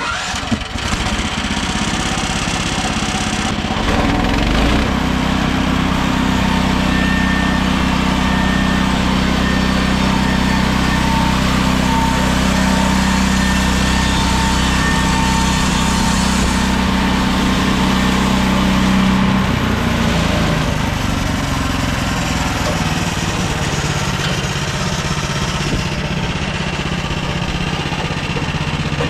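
Gasoline engine of a MechMaxx SM32 bandsaw sawmill running steadily. Its note shifts up about four seconds in and changes again around twenty seconds in.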